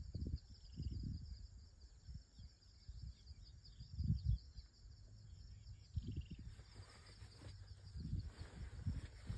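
Outdoor grassland ambience: a steady high insect trill runs throughout, with irregular low rumbles of wind buffeting the microphone, the strongest about four seconds in.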